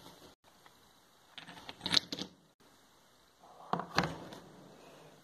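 Stones being set down by hand on wood-shaving bedding: two short bursts of knocks and rustling, about two seconds in and again about four seconds in.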